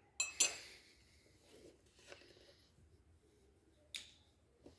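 A spoon clinking against a coffee mug while stirring in sugar, with a couple of ringing strikes just after the start, then a few faint soft taps.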